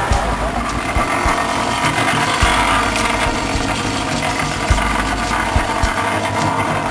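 Engine of road-works machinery idling steadily, with a few sharp low thumps scattered through it.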